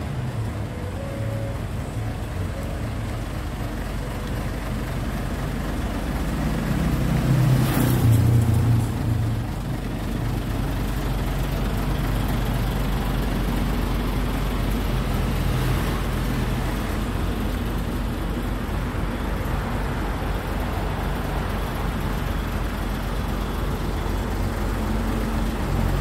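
Diesel truck engine idling with a steady low hum, growing louder for a few seconds around seven to nine seconds in.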